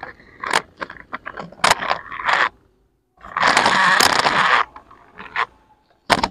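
Plastic toy trucks pushed and dragged across a gritty dirt floor, scraping in several short strokes, with one longer, louder scrape lasting about a second midway and a sharp scrape near the end.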